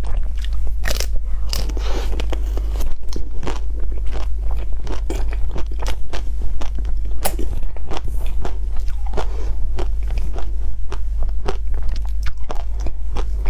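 Biting and chewing through the crisp chocolate shell of an ice cream bar, close to the mouth: a dense, irregular run of crunches over a steady low hum.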